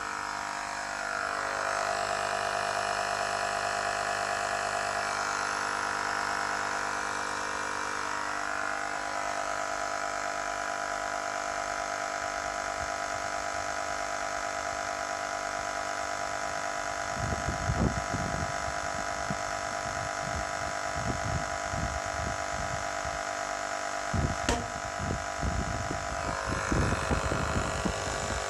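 Small 12-volt electric air compressor from a Toyota puncture repair kit running steadily with a buzzing motor whine, pumping air into a tyre to seat its bead. In the second half, irregular low bumps come over it.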